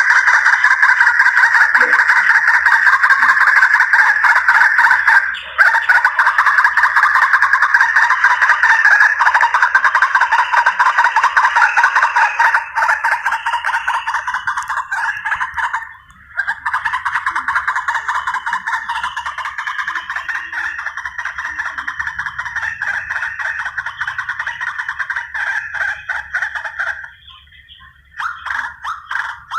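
White-breasted waterhen (ruak-ruak) calls played back as a hunting lure: a dense, continuous run of rapidly repeated notes, with brief breaks about five and sixteen seconds in and a short pause near the end.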